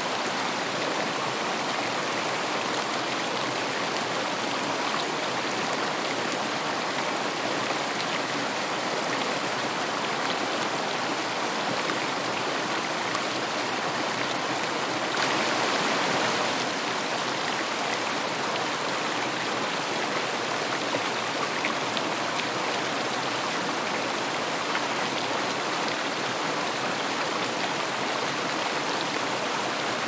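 Rain falling steadily onto shallow running water, a continuous patter of drops, slightly louder for a moment about halfway through.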